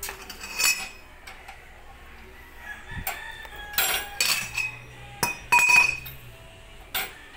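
Steel lug wrench and cheater pipe clinking and knocking against each other and on the wheel nut as a car's lug nuts are loosened: a string of sharp metallic clinks, some ringing briefly, the loudest about five and a half seconds in.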